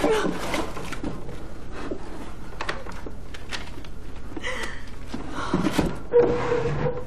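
Knocks and thuds of a wooden dresser drawer being rummaged through, with a short held cry or sob near the end.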